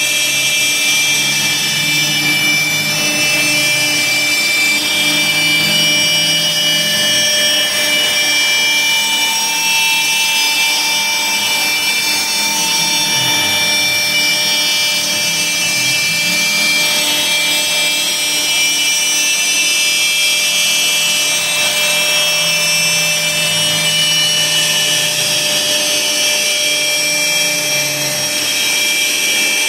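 CNC router (Laguna Swift) spindle running with a steady high whine as its bit cuts through half-inch plywood; the lower cutting sound wavers as the load changes along the cut.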